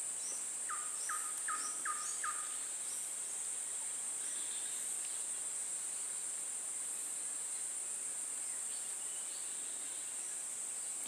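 Swamp insects droning in a steady, high-pitched chorus. About a second in, a bird calls five quick, short, falling notes.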